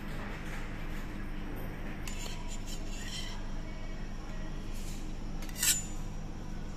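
A metal pizza server scrapes and clicks against the pan while cutting and lifting a pizza slice, then gives one sharp clink near the end as the slice is set down on a plate. A steady low room hum runs underneath.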